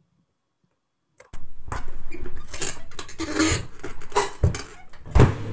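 Bass drum pedal strokes: irregular beater hits with metallic clanking and rattling from the pedal, cutting in abruptly about a second in, with two heavier low hits near the end.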